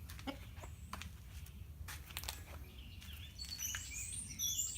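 Small birds chirping rapidly in a burst near the end, over a steady low outdoor rumble, with a few scattered short clicks in the first half.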